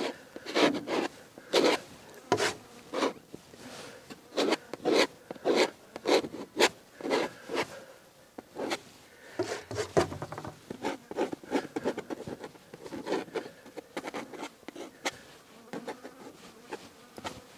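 Palette knife scraping and dabbing oil paint onto a primed linen canvas: a run of short scraping strokes, one or two a second.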